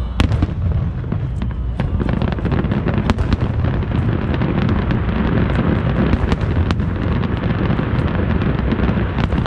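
Aerial fireworks shells bursting in a rapid barrage. A loud bang comes right at the start, then many more sharp bangs over continuous crackling and popping.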